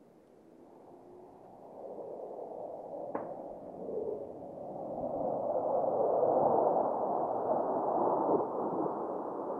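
Jet noise from a low-flying formation of Blue Angels F/A-18 Super Hornets, a rushing sound that builds from faint to loud as the jets approach. It is loudest about six to seven seconds in and eases a little near the end.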